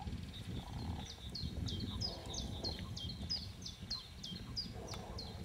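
A small songbird singing a run of quick, high notes that each slide downward, about three a second, starting about a second in, over a low irregular rumble.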